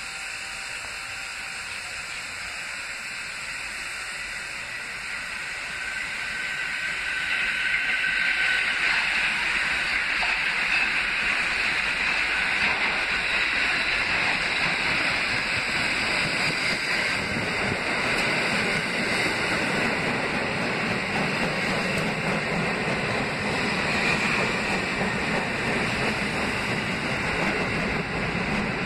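Kawasaki R68A subway train approaching and pulling into the station: a steady rushing noise of steel wheels on rail that grows louder about seven seconds in, with a deeper rumble building as the cars come alongside the platform.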